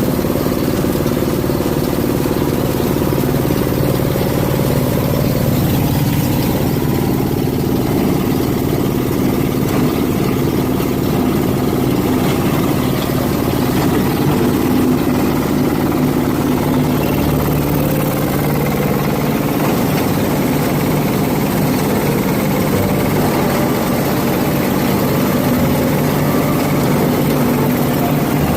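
Engine-driven cocopeat and oil-palm empty-fruit-bunch grinding machine (Jumbo Type-SM100) running at a steady, even speed.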